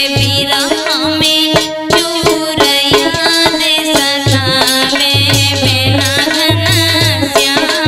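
Instrumental passage of a Hindi Malhar folk song: a melody played over a steady drum rhythm, with a low drum thud repeating about twice a second in the second half.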